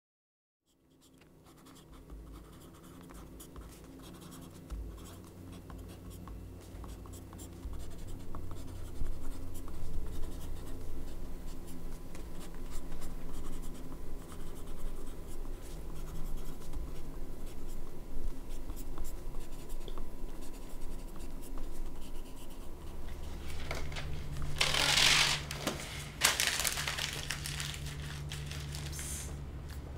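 Pencils scratching on notebook paper, fading in from silence over a steady low room hum. About 24 seconds in, a louder noisy swell rises for a couple of seconds.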